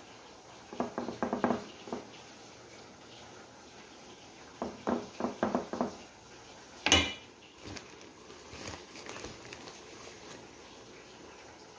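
Wooden spatula tapping and scraping against a glass baking dish while spreading a thick cream sauce. There are two quick runs of taps, about a second in and about five seconds in, a sharp clink near seven seconds, then softer scraping.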